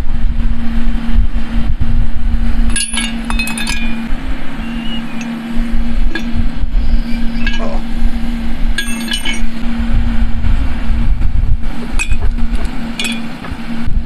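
A furnace blower running with a steady hum and rumble of air. Over it, pieces of aluminium scrap clink against the metal crucible as they are dropped in: a few separate clinks, around three seconds in, near nine seconds, and twice near the end.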